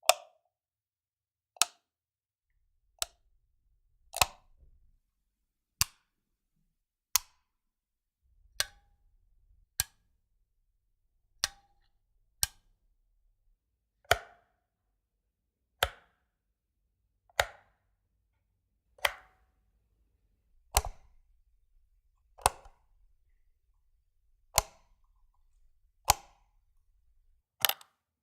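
Wall light switch flipped on and off over and over: a single sharp click about every one and a half seconds, some followed by a brief rattle, with near silence between them.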